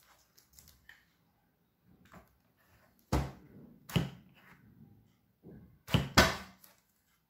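Plastic plunger cookie stamp being handled and knocked while dough is worked into it. There are four sharp thunks: one about three seconds in, one about four seconds in, and two close together around six seconds, the last pair the loudest. Faint rustling and handling sounds fall between them.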